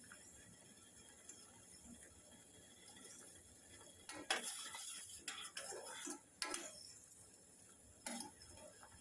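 Kitchen utensils clinking and knocking against a cooking pot: about half a dozen separate short knocks, starting about four seconds in after a quiet stretch.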